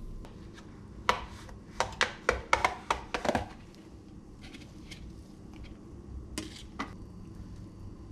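Kitchen utensils and containers knocking as a knife, a small bowl and a plastic tub are handled: a quick run of about ten sharp clicks and taps, then two more knocks a few seconds later.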